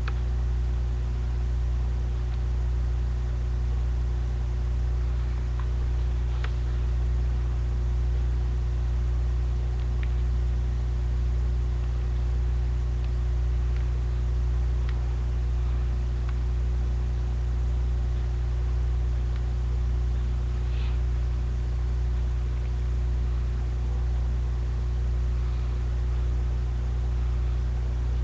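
A steady low hum with a few faint clicks scattered through it.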